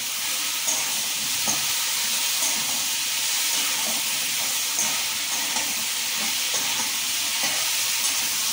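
Snake gourd and cucumber pieces sizzling in oil in a kadhai while a metal spoon stirs and mixes them, with a steady hiss and light irregular scrapes and knocks of the spoon against the pan.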